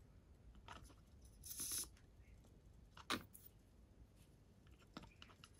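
Near silence with faint small working sounds of black paint being brushed over a tiny LED on a plastic model: a soft scratchy stroke a little under two seconds in and a couple of light clicks later.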